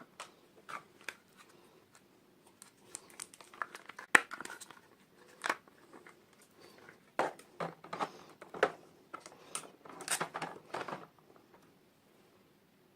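Plastic packaging being handled and opened by hand: irregular crinkling and rustling with small clicks and taps, the sharpest click about four seconds in.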